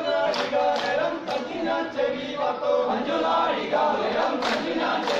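Group of men singing a Poorakkali song in chorus, the ritual folk-dance song of north Kerala, with sharp hand claps every so often keeping time with the dance.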